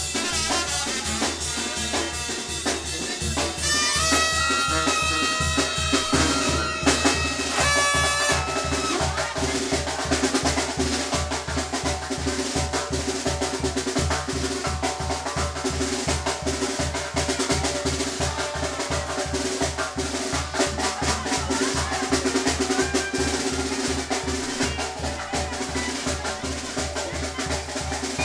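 Live dance-band music: a drum kit with snare and bass drum keeping a fast, steady beat under a bass line, with a pitched melody standing out between about four and eight seconds in.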